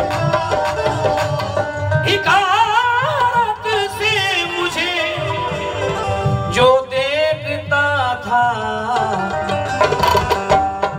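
Ghazal accompaniment: tabla keeping a steady rhythm under held chord notes, with a strongly wavering, ornamented melody line rising in about two seconds in and again near the middle.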